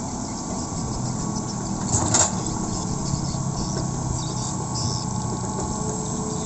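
Hydraulic excavator's diesel engine running steadily under load as its bucket pushes and levels loose soil, with a brief louder noise about two seconds in.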